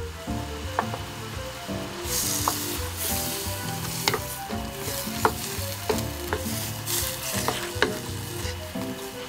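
Prawns and diced tomatoes sizzling in hot oil in a frying pan, stirred with a wooden spatula, with sharp ticks scattered through. The sizzle gets louder about two seconds in. Soft background music runs underneath.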